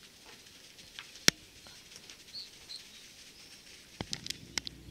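A couple of short, faint bird chirps over quiet open-air background, with a sharp click about a second in and several quick clicks near the end.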